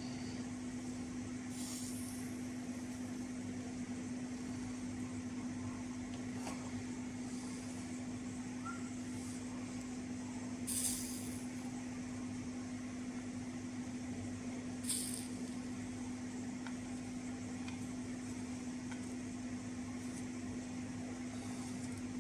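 Soldering iron at work on the contacts of an SBM-20 Geiger–Müller tube: four brief hisses of flux sizzling under the tip, the loudest about halfway through, over a steady low hum.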